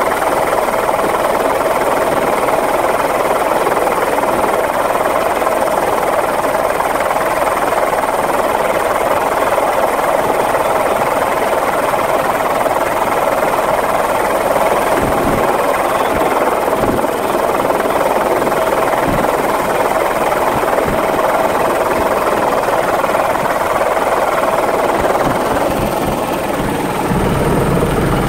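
Helicopter turbine and rotor running steadily overhead: a continuous rushing drone with a steady high tone in it, and a deeper rotor sound coming in near the end.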